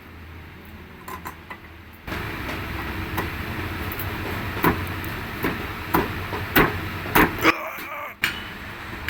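Metal parts of a Volkswagen Polo A/C compressor clinking and tapping as they are fitted together: a string of sharp, irregular clicks over a steady background hum.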